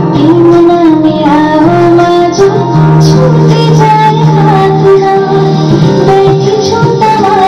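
Music: a song sung by a woman over instrumental accompaniment.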